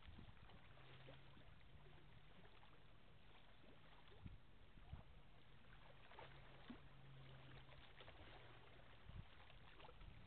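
Near silence: faint outdoor background with a low hum that comes and goes and a few faint ticks.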